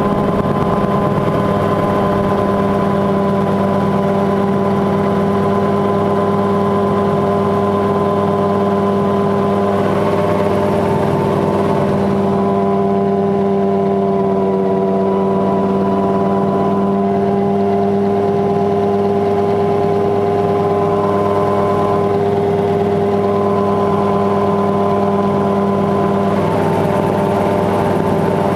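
Mosquito XE single-seat kitset helicopter in steady flight, heard on board: engine and rotor running loud and even, at a constant pitch throughout.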